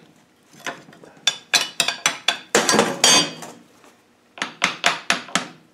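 Steel gearbox parts clinking and knocking together in quick clusters as a part is worked back and forth on the R380 gearbox mainshaft. The part is stuck and won't slide off.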